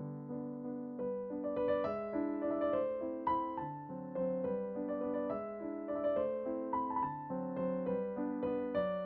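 Background music: a gentle piano melody over held chords, notes struck one after another.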